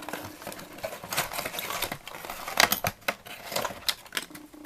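Packaging being handled while a ceramic mug is unboxed: irregular rustling with a scatter of light clicks and taps.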